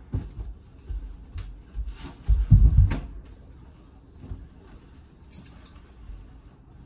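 A run of knocks and thumps with some rustling and a few sharp clicks, the heaviest thumps about two and a half seconds in, then a short hiss about five seconds in.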